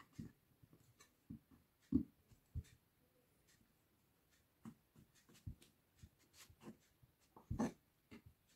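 Kitchen knife cutting through a block of pizza cheese and knocking on a wooden cutting board: scattered soft taps and thumps, the loudest about two seconds in and again near the end.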